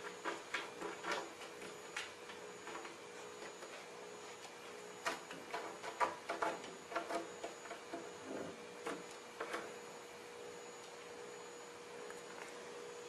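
A cat's claws tapping and scrabbling on a window frame as it paws and climbs up. The clicks come in irregular clusters, in the first couple of seconds and again from about five to ten seconds in, over a steady hum.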